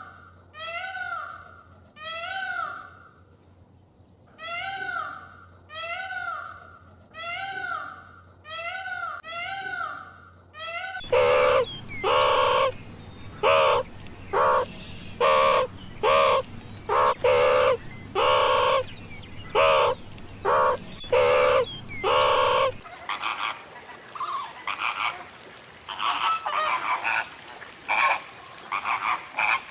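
A sequence of animal calls from three different recordings: first a run of short arched chirps about one a second, then about 11 seconds in much louder pitched calls in a quick repeated series, and from about 23 seconds a fainter, busier run of calls.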